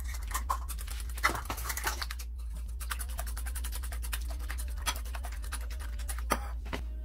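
Wire whisk beating eggs and milk in a ceramic bowl: rapid clicking and scraping strokes, with a short pause about two and a half seconds in, over a steady low hum.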